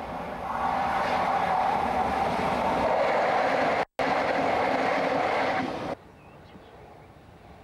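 Two coupled Class 47 diesel-electric locomotives, Sulzer twelve-cylinder engines, running light past at close range. The engine noise swells as they draw level and stays loud, broken by a split-second dropout near the middle. It cuts off abruptly about six seconds in, leaving a much quieter background.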